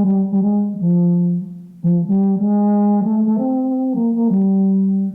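Euphonium playing a short melody of held notes in two phrases, with a brief break about a second and a half in.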